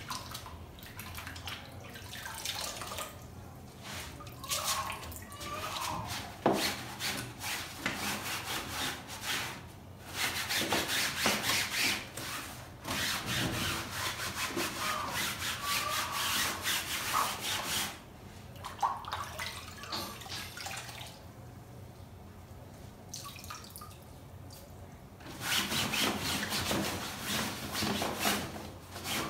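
A wet cloth is dipped and wrung over a basin of water, dripping, then rubbed over the fabric seat of a baby swing bassinet in stretches of scrubbing strokes several seconds long, with a quieter pause between them.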